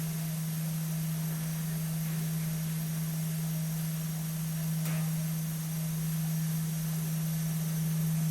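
Elevator car moving: a steady low hum from the lift's drive, with a faint tick about five seconds in. The hum stops at the very end.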